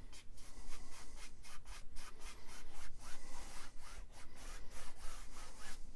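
Wide bristle brush scrubbing oil paint across a stretched canvas: a dry rubbing hiss in quick repeated strokes, about three or four a second.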